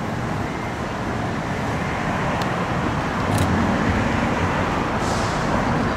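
Steady low rumble of road traffic, with a brief swell of hiss about five seconds in.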